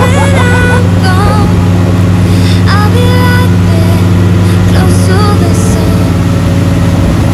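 Motorboat engine running steadily while towing a banana boat, with people's voices calling out over it now and then.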